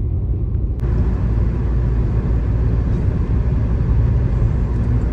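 Steady low road rumble of a car travelling along a highway. A brighter rush of noise joins it abruptly about a second in.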